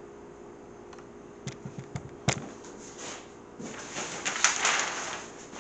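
Large paper plan sheets being handled: a few sharp crackles and taps, then, from a little past the middle, a couple of seconds of loud paper rustling and crinkling as a sheet is moved and turned over, over a faint steady hum.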